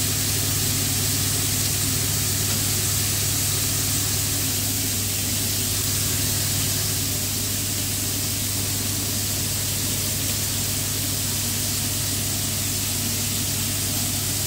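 Pork pieces and chips frying in hot oil: a steady, even sizzling hiss over a low hum.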